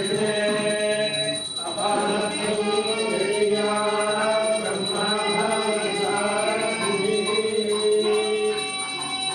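Voices singing a devotional chant in long held, gliding notes, with a thin steady high tone behind.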